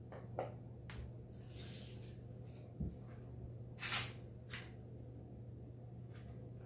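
Hands working paste-soaked paper strips onto a paper mâché balloon: a few soft rustles and wet paper sounds, with the sharpest rustle about four seconds in and a dull tap just before three seconds, over a low steady hum.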